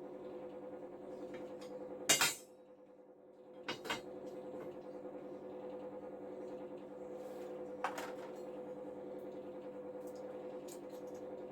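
Metal clanks from steel anchor-rod parts or tools being knocked and set down: three sharp clanks, the loudest about two seconds in. Under them runs a steady hum.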